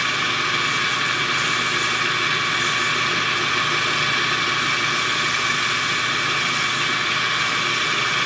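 Metal lathe running at about 1400 RPM while a diamond triangle file is held lightly against a spinning glass test tube to score it: a steady, high-pitched grinding hiss over a faint steady whine.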